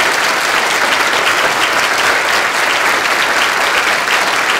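Audience applauding loudly and steadily, many people clapping at once.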